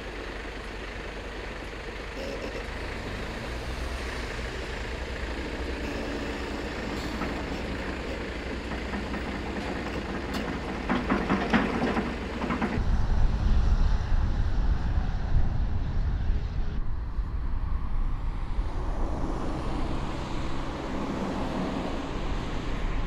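Heavy trucks running close by and moving off, their engine hum rising in pitch, with a short clatter near the middle. A sudden change about halfway through brings heavy wind buffeting the microphone as a loud low rumble.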